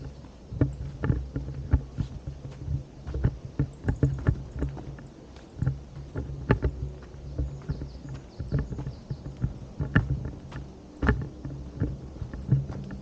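Footsteps on a forest path, irregular knocks about two a second, over a steady low rumble from wind or handling on the microphone.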